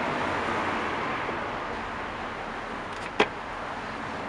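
One sharp click about three seconds in, from small parts being handled: the window winder handle and its spring retaining clip, just pulled off the door trim. A steady background hiss runs underneath.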